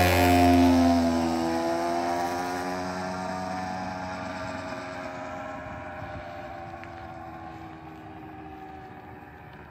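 A 50cc pocket bike's small engine running as the bike rides away, its pitch dipping just after it passes and its sound fading steadily into the distance.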